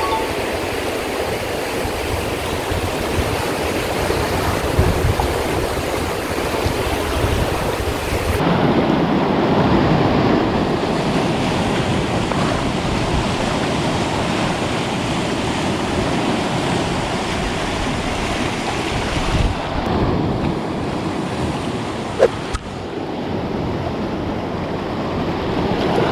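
Sea surf washing and breaking over a rocky shore, a steady rushing noise, with wind on the microphone. A brief sharp click about 22 seconds in.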